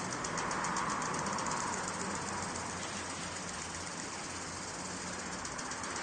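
Golf course sprinkler spraying water: a steady hiss with a rapid, even ticking. The spray swells louder for a second or so near the start as it sweeps past, over a low steady hum.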